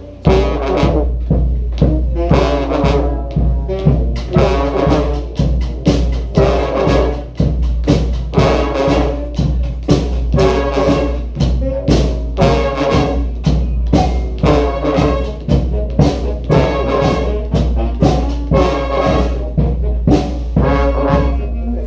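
A brass street band plays a repeated funk riff in rehearsal: horns and trombones over a steady drum beat of about two beats a second, with a sustained low bass line underneath.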